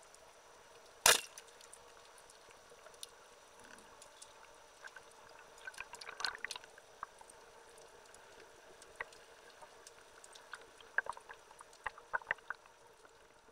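Speargun firing underwater at a mullet: one loud sharp snap about a second in, followed by scattered faint clicks and crackles in the water.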